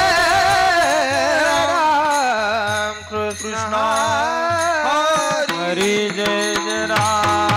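Devotional kirtan singing: a voice holds and ornaments a wordless melodic line, sliding down in pitch, over steady accompanying tones and regular hand-drum beats.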